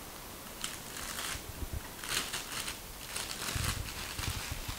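Clear plastic packaging being pulled open by hand, crinkling in several short bursts, with a few soft low bumps from handling.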